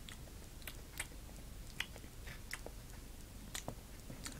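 Faint, irregular clicks and taps of plastic model horses being handled and nudged against a toy hay bale to act out eating.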